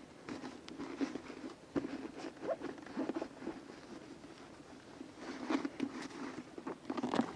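Cloth rubbing and wiping over a motorcycle helmet, with soft irregular rustles and small handling clicks. They come thicker in the first second or two and again near the end.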